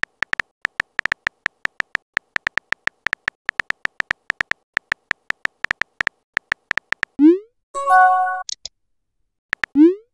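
Phone keyboard tap sounds, rapid short clicks several a second as a text message is typed. About seven seconds in comes a rising swoosh as the message is sent, then a short synthetic chime of a few pitched notes, and near the end a few more taps and another rising swoosh.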